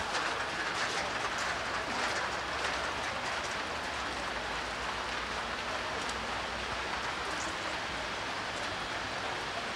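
Steady rain falling on a city street, an even hiss, with a low rumble of passing traffic from about three seconds in until near the end.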